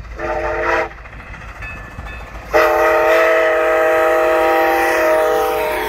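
Grand Canyon Railway No. 29, a 2-8-0 Consolidation steam locomotive, blowing its steam whistle for a road crossing: a short blast near the start, then a long blast held from about halfway in.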